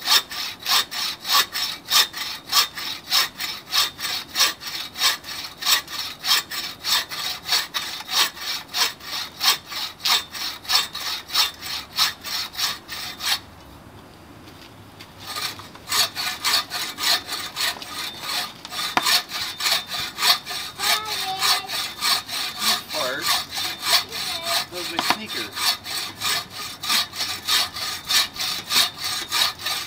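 TrailBlazer 24-inch takedown buck saw cutting through a 10-inch log, the blade rasping back and forth in a steady rhythm of about three strokes a second. The sawing stops for about two seconds near the middle, then resumes.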